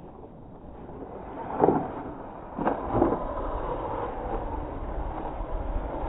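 Radio-controlled off-road truck climbing a steep sand slope: its motor revs in two short surges, about a second and a half and three seconds in, then runs steadily as the spinning wheels dig in and spray sand.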